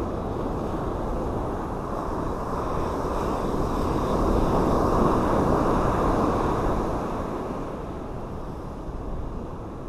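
Ocean surf breaking and washing up a sand beach, a steady rushing that swells in the middle and eases toward the end, with wind on the microphone.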